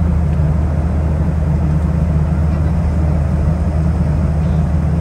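Steady low drone of a passenger airliner cabin in flight: engine and airflow noise heard from a seat inside the cabin, unbroken throughout.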